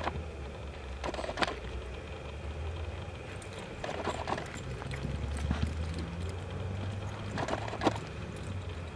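A cutting horse's hooves striking and scuffing in soft arena dirt as it stops and turns with a cow: a handful of separate thuds over a steady low rumble.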